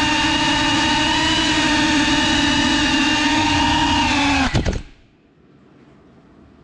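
GEPRC CineLog 35 cinewhoop drone's motors and propellers buzzing steadily at a nearly constant pitch, heard close up from its onboard camera. About four and a half seconds in, a few sharp clattering knocks as it crashes, and the motor sound stops, leaving only faint hiss.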